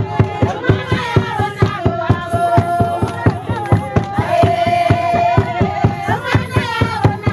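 A group of voices singing a short phrase over and over, over fast, steady hand-clapping for a dance.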